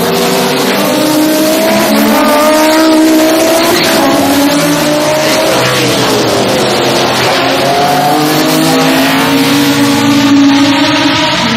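IMSA GTO race cars' engines revving and accelerating through a street-circuit corner, with several engine notes overlapping and rising and falling in pitch. One note dips and climbs again about six to seven seconds in, as a car passes.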